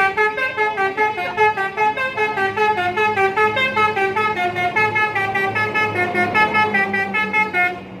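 Basuri 'telolet' multi-tone bus horn playing a fast melody of short notes, several each second, that stops shortly before the end. A low steady hum runs underneath.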